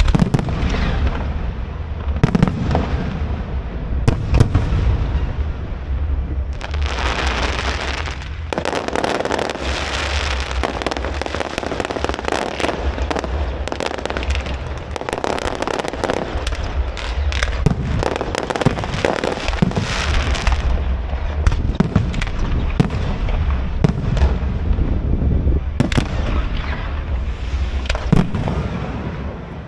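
Aerial fireworks display: repeated sharp bangs of bursting shells over a deep rumble, with a long dense stretch of crackle from about seven to twenty seconds in.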